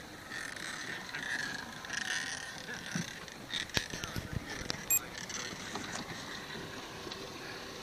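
Off-road electric mobility scooter running over a rough track, with a steady motor whine and a few sharp knocks and rattles around the middle.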